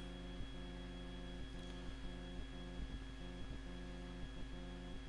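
Steady low electrical hum, mains hum picked up by the recording, with faint steady tones over it.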